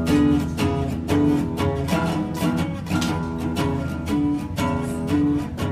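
Background music: plucked string notes in a quick, steady melody.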